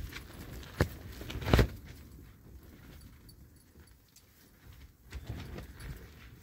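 Two sharp knocks close to the microphone, then soft rustling and shuffling of tent fabric and bedding as the phone is moved about inside a tent.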